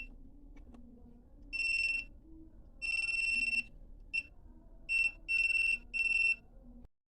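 A multimeter's continuity beeper sounding in about six high, steady beeps of uneven length, some brief and some near a second long, as the test probes make and break contact while the blower's wiring is checked.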